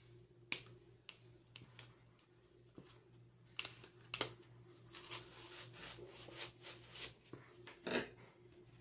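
Small scissors snipping into felt to cut a hole: a series of faint, short snips and clicks at irregular intervals, coming more often in the second half.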